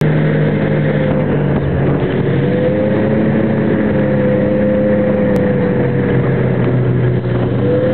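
Snowmobile engine running steadily at cruising speed, its pitch holding nearly level throughout.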